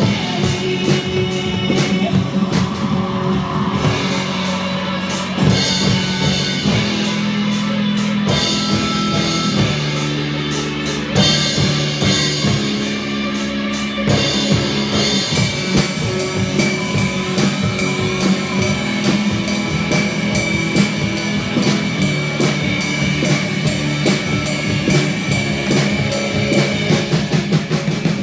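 Drum kit played live over a rock backing track with guitar and sustained chords. Steady strikes of kick, snare and cymbals, with a fast even run of hi-hat or cymbal strokes in the second half.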